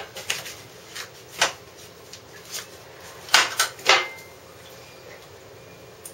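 Front fork of a 1992 Honda CBR400RR (NC29) being pushed down and let back up, giving a run of irregular knocks and creaks. A cluster of three louder knocks comes a little past three seconds in. The owner finds the fork too soft; it later needed new springs, fork oil and steering-stem bearings.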